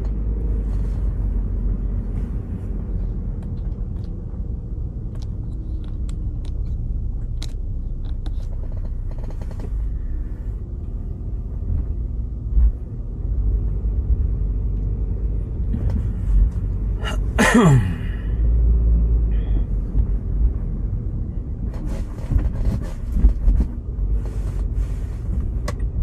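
Road and engine noise inside a moving car: a steady low rumble with scattered light clicks. About seventeen seconds in, a brief sound sweeps sharply down in pitch.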